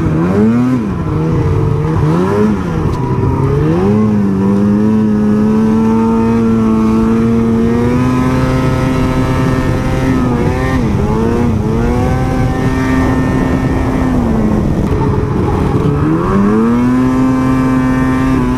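Ski-Doo 800 snowmobile's two-stroke twin engine running hard under throttle. Its pitch climbs, holds a steady high note for several seconds at a time, and dips and comes back up three or four times as the throttle is eased and reopened.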